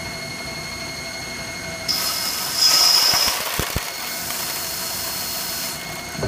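Haas TL-1 CNC lathe spindle running with a steady whine while a gang-tool insert turns a spinning brass bar. From about two seconds in, a hiss of cutting comes in, loudest around three seconds, and it drops away shortly before the end.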